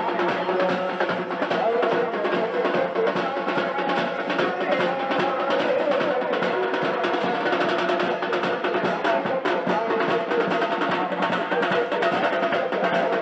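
Gujarati street wedding band playing: dense, fast drumming with a melody held over it.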